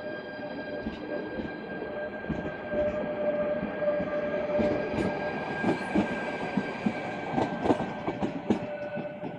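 FEVE narrow-gauge diesel railcar running, with a steady whine under the rumble and irregular clacks of wheels over the rail joints that come thickest in the middle.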